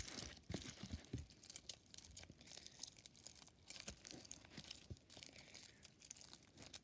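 Slime mixed with shiny metallic foil confetti being squeezed and kneaded by hand. It gives faint crinkling and crackling with irregular small clicks, a little louder in the first second.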